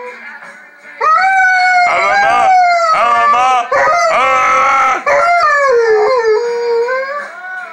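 Dog howling in long, wavering howls that glide up and down in pitch, after a short lull about a second in.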